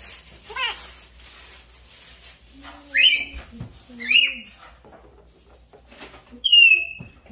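African grey parrot whistling and calling: a short warbling call near the start, two loud rising whistled calls about three and four seconds in, and a clear, slightly falling whistle near the end.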